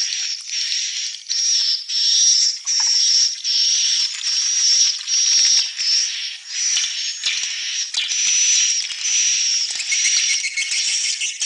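Swiftlets twittering: a continuous run of high, buzzy chirps, each roughly half a second long, following one another with hardly a break.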